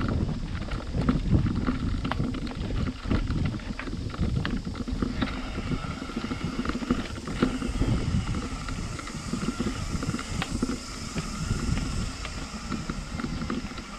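A mountain bike's tyres rumbling over a dirt forest trail and its frame rattling, picked up by a handlebar-mounted camera, with wind on the microphone and frequent small knocks over bumps. A steady high buzz joins about five seconds in.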